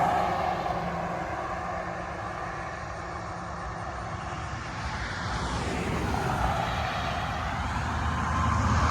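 A passing motor vehicle's rushing noise fades away, then another vehicle approaches and grows louder near the end.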